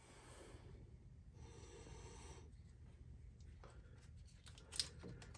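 Near silence: a faint low hum and faint scraping of a hand working an engine's distributor in its bore, with one short click near the end.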